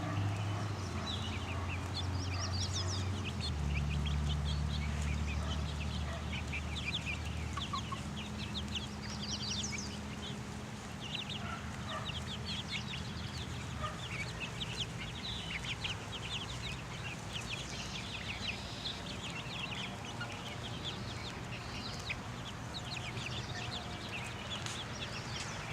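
A flock of young chicks peeping and cheeping, many short high calls overlapping without pause. A low steady hum sits underneath for the first half and fades out about halfway through.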